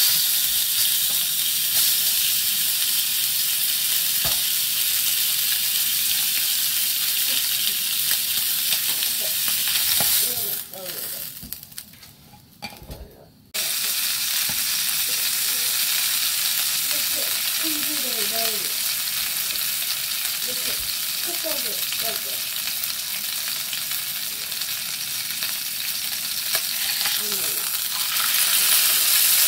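Sirloin steak sizzling in hot fat in a small metal camping pot while it is turned with tongs. The sizzle dies away about ten seconds in and comes back suddenly a few seconds later.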